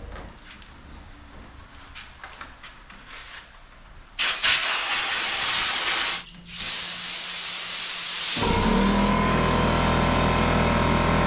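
A loud hissing spray starts suddenly about four seconds in, cuts out briefly, then starts again. About eight seconds in, a motor starts running beneath it with a steady hum.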